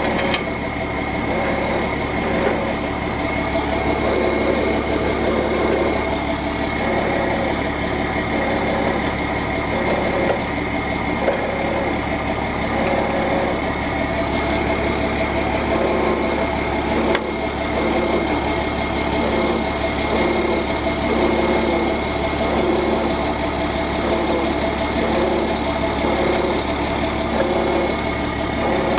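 Tow truck engine idling steadily.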